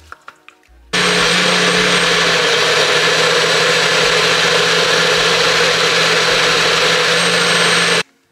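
NutriBullet personal blender running steadily for about seven seconds, blending a fruit smoothie as the cup is held pressed down on its base. A few small clicks come first as the cup is seated. The motor starts abruptly about a second in and cuts off abruptly near the end.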